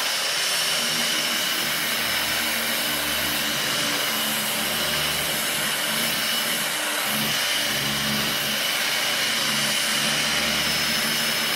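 Electric angle grinder with a sanding disc running steadily against a rough wooden plank, a constant high whine over the rasp of the disc on the wood.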